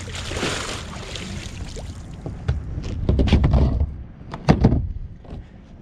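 A large fishing magnet pulled up out of the water on its rope, with a splashing wash of water. It is then hauled over the edge and onto the wooden dock boards, scraping and landing with a few sharp knocks.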